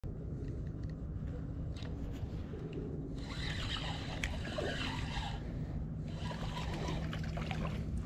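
Spinning reel being cranked in two stretches, its gears whirring with fine ticks, as a yellow perch is reeled in with light splashing at the surface, over a steady low rumble.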